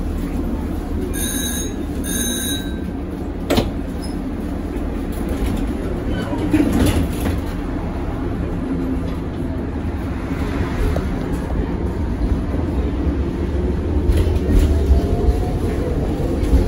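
Tatra KT4D articulated tram running, heard from on board: a steady low rumble of wheels on rails, with two short beeps about a second and two seconds in and a sharp knock about three and a half seconds in. From about ten seconds a whine rises steadily in pitch as the tram picks up speed.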